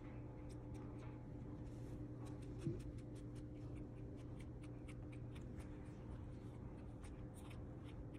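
Faint scratching and rubbing of hands handling a puppy on a fleece blanket close to a phone microphone, with many light clicks over a steady low hum, and one brief soft sound about a third of the way in.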